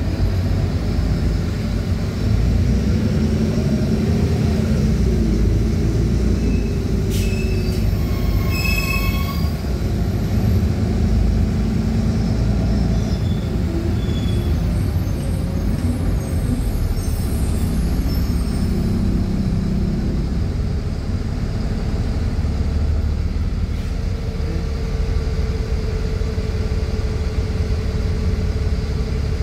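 City bus driving, heard from inside the passenger cabin: steady engine and road noise. A brief high squeal comes about eight or nine seconds in, and a steady whine sets in near the end.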